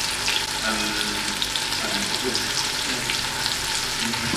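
Oxtail pieces sizzling in hot oil as they brown in a pot, a steady crackling hiss.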